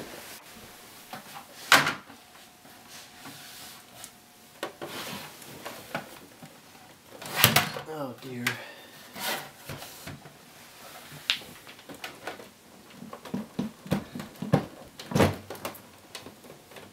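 Irregular knocks, clunks and scraping as a plastic UPS battery-backup unit is shifted and worked out of a tight wooden shelf cubby among its cables. The sharpest clunks come about 2 s and 7.5 s in, with a busier run of knocks near the end.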